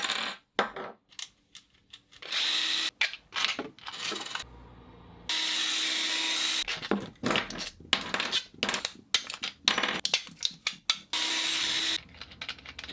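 Cordless drill-driver running in short bursts, backing bolts out of 3D-printed plastic parts; the longest run lasts about a second and a half. Between runs come sharp clicks and knocks of the parts being handled.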